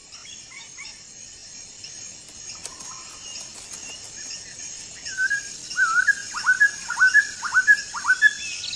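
Jungle birdsong: faint high chirps at first, then from about five seconds in a bird gives a quick series of loud whistled calls, each dropping sharply in pitch.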